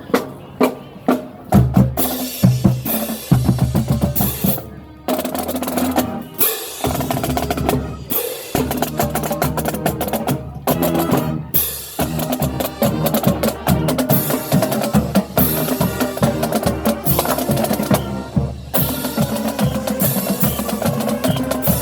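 Marching band playing: the drumline's snare and bass drums beat out a pattern, and from about five seconds in the band's horns join with held notes over the drums.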